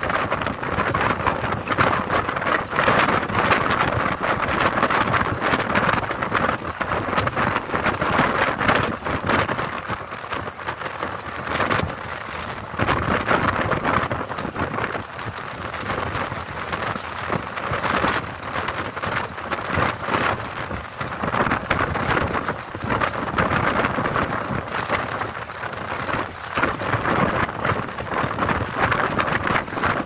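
Steady rush of wind and road noise from a moving vehicle, a loud hiss with no engine note that swells and eases every few seconds.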